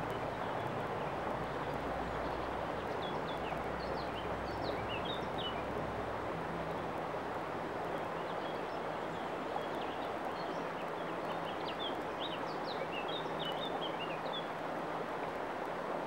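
Shallow river water running over a stony bed, a steady rushing. Small birds chirp in short quick notes, in two spells: around four seconds in and again from about ten to fifteen seconds.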